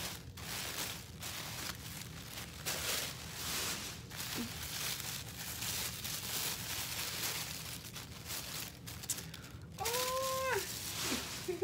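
Tissue paper and soft baby clothes rustling and crinkling as they are unwrapped and handled. About ten seconds in, a short high call rises and falls, and a second, briefer one starts near the end.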